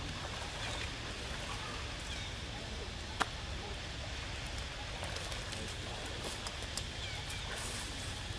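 Steady outdoor background noise with a low rumble, faint distant voices and a single sharp click about three seconds in.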